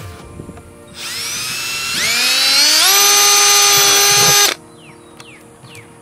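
Cordless drill spinning up, its motor whine rising in pitch over about two seconds, then running steadily as the bit bores through the bottom of a plastic 5-gallon bucket, and stopping abruptly.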